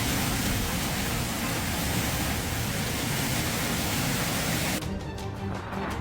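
Steady hiss of heavy rain pouring down, with music underneath. Near the end the hiss thins out and turns duller.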